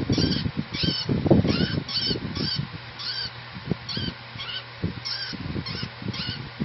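African lovebird giving a steady run of short, shrill chirps, about two or three a second. Low rustling and knocking sounds run underneath, loudest about a second in.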